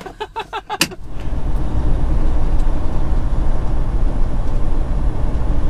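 Loud, steady low rumble inside a Freightliner Cascadia's cab, with the Detroit DD15 diesel, tyres and wind at road speed, starting suddenly about a second in. It is preceded by a quick run of short pulses.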